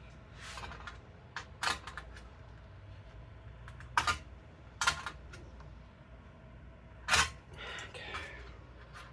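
Hand-tool clicks and short scrapes against a computer case while a stuck motherboard standoff is being worked loose without pliers. About six sharp clicks come irregularly, the loudest about four, five and seven seconds in, each followed by a brief scrape.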